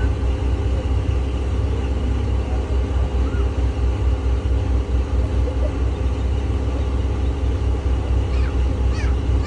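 Steady low rumble aboard a boat under way: the motor running, mixed with wind and water noise.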